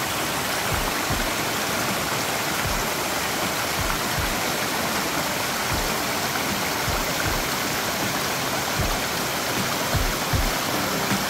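Shallow rocky stream flowing, a steady rush of water over stones, with irregular low thumps underneath.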